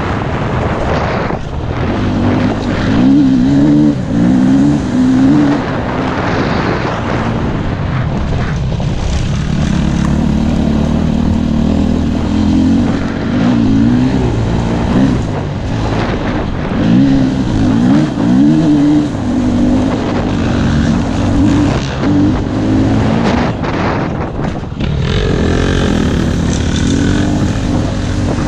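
KTM 250 EXC-F four-stroke single-cylinder enduro engine running under way, its revs rising and falling again and again as the bike accelerates and shifts, with wind noise on the microphone.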